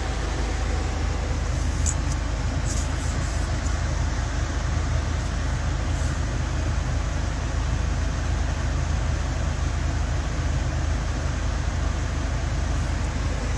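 Steady low rumble and hiss of a van's cabin, with a few faint high clicks about two to three seconds in.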